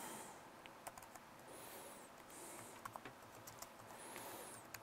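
Faint, scattered clicks of a computer keyboard, irregularly spaced, over a low hiss.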